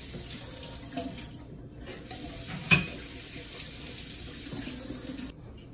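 Kitchen faucet running into a stainless steel sink while a plate is rinsed under the stream. The flow breaks off briefly about a second and a half in, a single sharp clack just under three seconds in is the loudest moment, and the water shuts off shortly before the end.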